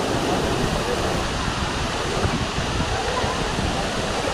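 Steady rush of water from a tall waterfall crashing into its pool, heard close up.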